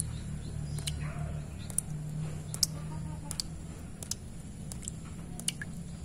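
Water drops falling one at a time into a shallow puddle, each landing with a short plop, irregularly about once or twice a second, over a steady low hum.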